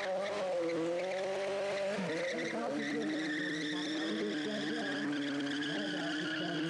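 Yamaha sportbike engine held at high revs during a burnout, the rear tyre spinning on the tarmac. The pitch wavers and dips briefly about two seconds in, then holds steady.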